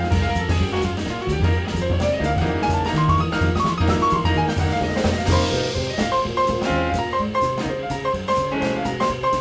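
Small jazz combo playing: piano, double bass and drum kit, with a melodic line that climbs and then falls over steady plucked bass notes and regular cymbal strokes. A cymbal crash rings out about five and a half seconds in.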